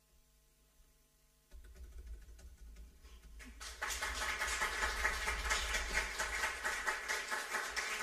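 Audience applause. It starts lightly about one and a half seconds in and swells to full, dense clapping about four seconds in.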